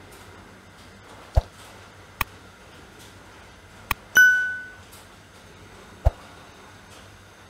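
A few short clicks and light knocks from kitchen handling, and about four seconds in a click followed by a single bright bell-like ding that fades over about half a second, the chime of an on-screen subscribe animation.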